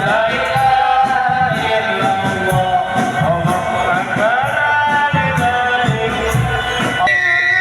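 Loud music with a singing voice and regular drum beats, played over a large sound system.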